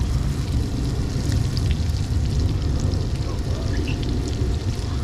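Yellowtail snapper fillets sizzling and bubbling in butter in a cast-iron skillet, with scattered small pops and crackles over a steady low rumble.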